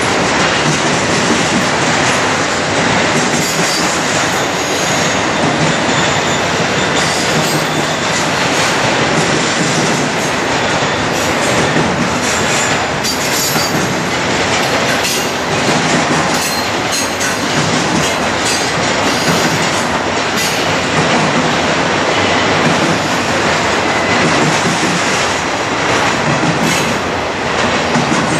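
Double-stack intermodal container cars of a freight train rolling past: a steady rumble and rush of steel wheels on rail, with scattered clicks and clatter from the wheels and cars.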